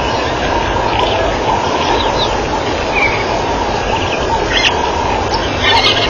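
A steady, loud rumbling outdoor background noise, with a few short, high chirps and calls over it at intervals.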